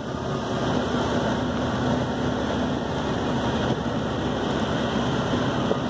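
Steady drone of a bus's engine and road noise, heard from inside the moving bus, with a faint low hum running under it.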